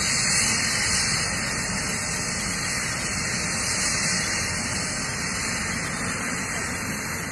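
Helicopter on the ground with its turbine engine and main rotor running, a steady rushing noise without pauses.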